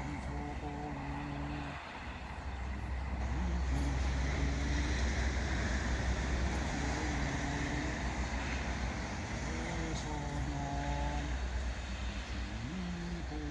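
Steady low outdoor rumble like distant road traffic, with a man's voice sounding long, drawn-out held notes several times, like slow chanting.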